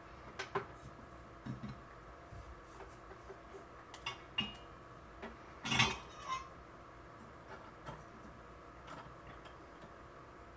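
Scattered light clicks and clinks of small tools and hard parts being handled on a workbench, the loudest a sharp clatter about halfway through.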